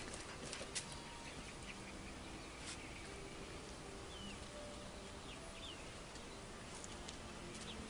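Quiet back-yard ambience with a few faint bird chirps and a handful of light clicks.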